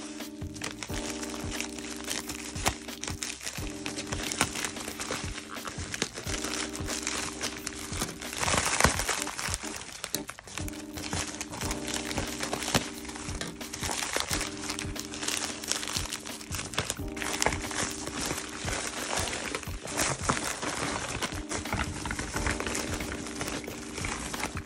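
A package of nail supplies being opened by hand: continuous crinkling and rustling of packaging, with a louder burst about nine seconds in, over steady background music.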